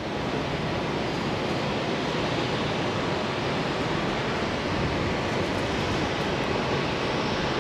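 Steady, distant roar of a Boeing 737-800's CFM56 jet engines as the airliner rolls along the runway.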